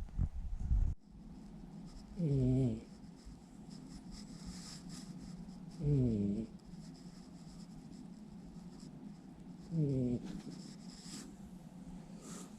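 Domestic cat snoring while asleep: three short snores about four seconds apart, each falling a little in pitch, over a steady low hum. It opens with about a second of louder noise that cuts off abruptly.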